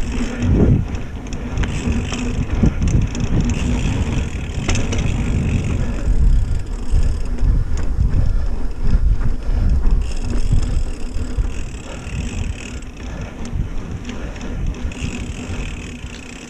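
Mountain bike being ridden along a dirt trail: tyres rumbling over the ground with clicks and rattles from the bike, easing off over the last few seconds as it slows.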